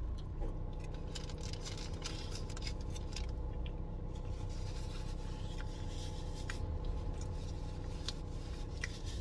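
Paper food wrapping rustling and crinkling in short, irregular bursts as a roti is handled, over a steady low hum inside a car.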